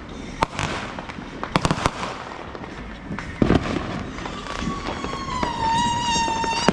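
Consumer fireworks: scattered sharp firecracker pops and a thump about three and a half seconds in. From about four seconds in, a long whistling firework screech dips slightly in pitch and then holds steady.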